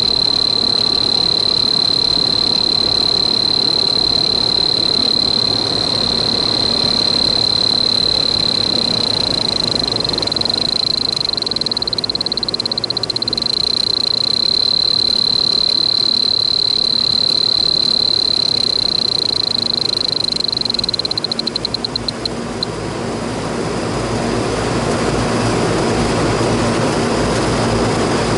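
A steady, high-pitched insect drone that breaks into rapid pulses and stops a little past twenty seconds in, over the steady hum of running rooftop air-conditioning units. A broader rushing noise swells near the end.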